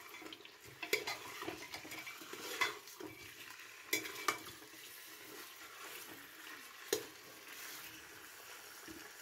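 A metal spatula scraping and knocking against the inside of an aluminium pressure cooker as raw mutton pieces are stirred into fried onions in oil, with a faint sizzle underneath. The scrapes come irregularly, a few louder knocks standing out around the third, fourth and seventh seconds.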